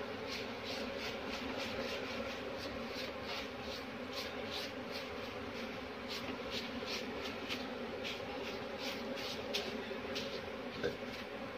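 Honeybees buzzing steadily around an opened hive while a bee brush sweeps them off a comb frame, its strokes heard as short swishes two or three times a second.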